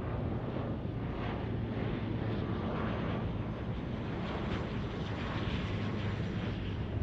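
De Havilland Canada Dash 8-400 turboprop on approach with its landing gear down: its twin Pratt & Whitney PW150A engines and six-bladed propellers give a steady low drone with a rushing hiss above it.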